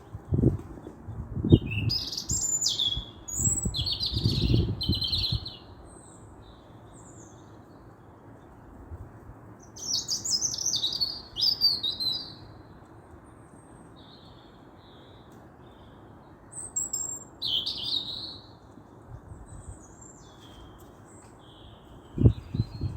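A songbird singing in three main bursts of quick, high warbling phrases, with shorter calls between them, over a steady background hiss. A few low thuds come in the first few seconds.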